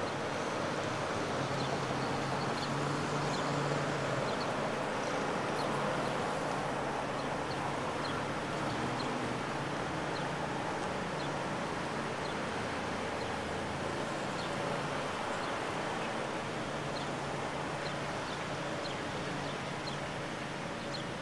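Steady outdoor parking-lot ambience: a low hum of traffic and engines with wind noise on the microphone, and faint high ticks about once a second.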